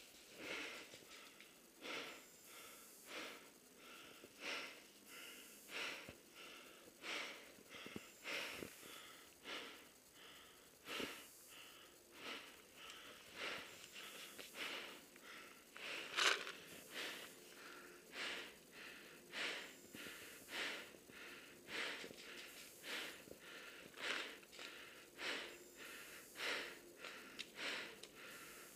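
A person breathing quickly and evenly, soft puffs of breath in and out about one every three-quarters of a second, with one louder breath a little past halfway.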